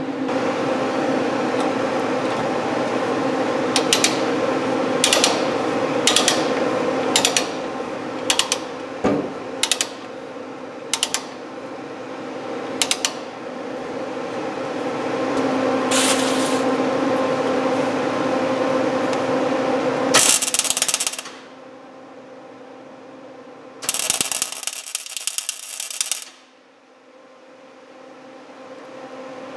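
Ratchet chain binder being cranked tight on a chain, its pawl clicking about once a second over a steady hum. Then come two short bursts of MIG-welder arc crackle, the second lasting about two seconds.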